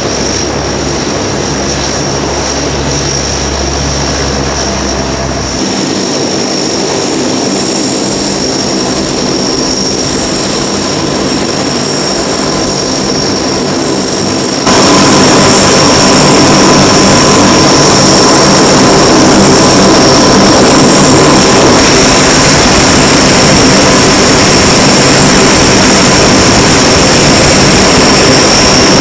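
Lockheed P-3 Orion's four Allison T56 turboprop engines running on the ground: a steady propeller drone with a high turbine whine. The sound steps up sharply about halfway through.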